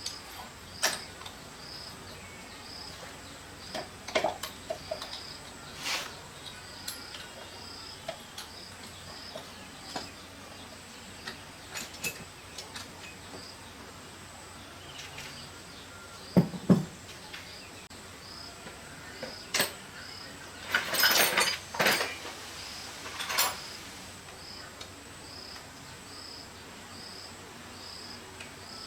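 Scattered knocks and clinks of hand work on motorcycle parts, loudest in a cluster about two thirds of the way in. Behind them a faint high chirping repeats steadily about twice a second.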